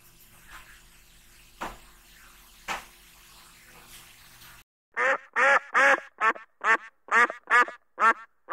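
Duck quacking: a run of about nine loud quacks, roughly two a second, beginning about halfway through after a faint, quiet stretch. The later quacks are shorter than the first.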